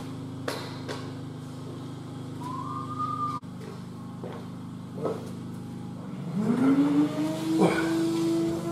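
A vacuum cleaner is switched on about six seconds in: its motor spins up with a rising whine, then runs steadily. Before that there are a few footsteps on a laminate floor over a steady low hum.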